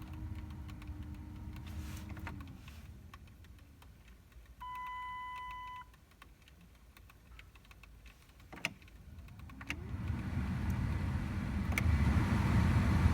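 Heater blower motor of a 1999 Dodge Intrepid, tested after a new blower motor resistor was fitted. Its hum winds down about two seconds in, and a single electronic beep sounds for about a second. After a couple of clicks the fan spins up again, and its air rush grows louder toward the end: the blower now works on more than one speed.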